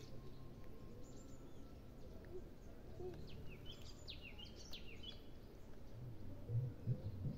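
Small birds chirping in a quick flurry of short, high calls about three to five seconds in, over a steady low rumble of outdoor background noise. A few dull low thumps come near the end.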